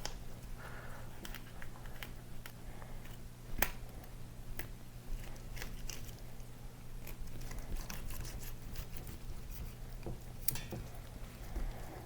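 A fillet knife and hands working a whole red tilapia: scattered soft clicks and small scrapes, a little louder about three and a half seconds in and again near ten and a half seconds, over a steady low hum.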